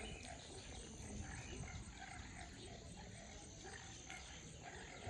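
Faint outdoor ambience before a storm: wind rumbling on the microphone, a steady high-pitched insect drone, and scattered faint distant sounds.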